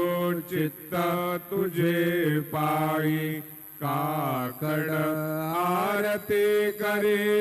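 A Marathi devotional aarti hymn sung in a chant-like melody, with long held notes and short breaths between lines.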